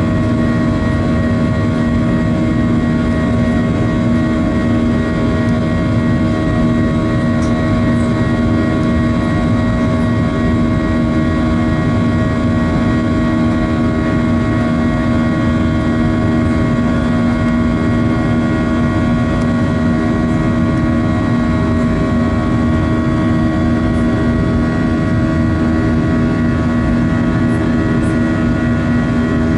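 Boeing 737-800's CFM56-7B jet engines at climb power, heard inside the cabin near the wing. The noise is steady, with several droning tones held throughout.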